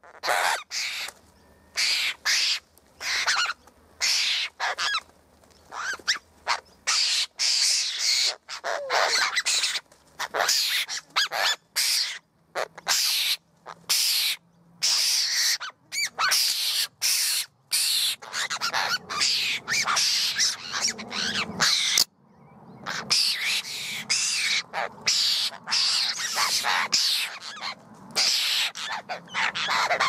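A flock of apostlebirds calling close by: harsh, rasping calls one after another, several birds overlapping, with short pauses between bursts and one longer pause near the end.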